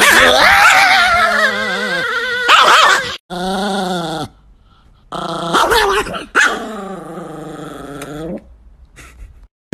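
Chihuahua growling and snarling in wavering, rising-and-falling bouts. It cuts off about three seconds in and starts again twice, ending well before the close.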